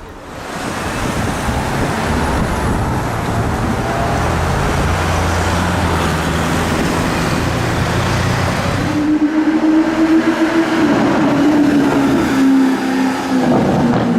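Loud supercar engines: first a car accelerating hard with a deep engine note, then, about nine seconds in, a sudden switch to a higher, clearer engine note that slowly drops in pitch as it revs down.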